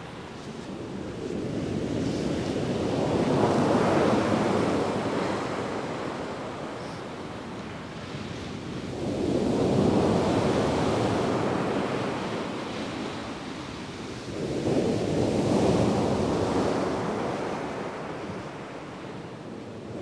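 Heavy surf: three large waves break and wash up the beach about six seconds apart, each swelling up and then fading away.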